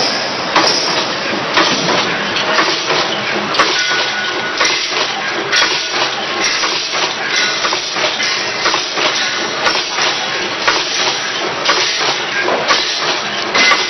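Automatic vertical grain packing machines running: a steady mechanical clatter with hiss and frequent sharp clacks as the machines cycle.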